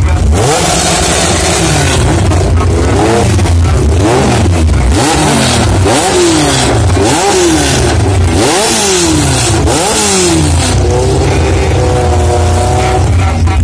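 Honda Civic hatchback drag car's engine being free-revved through its race exhaust: a run of sharp revs, each climbing and then falling back. Near the end it is held steady at a raised speed for a couple of seconds.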